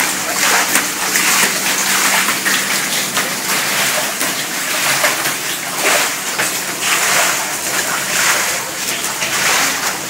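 Floodwater on a tiled floor splashing and sloshing as it is pushed along with a floor squeegee, in a steady run of irregular swishes.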